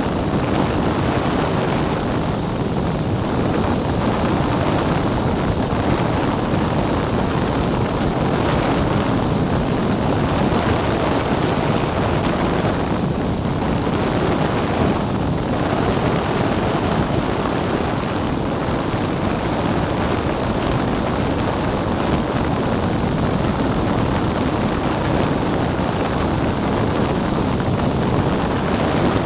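Steady drone of a Cessna 177's piston engine and propeller with rushing air, in flight.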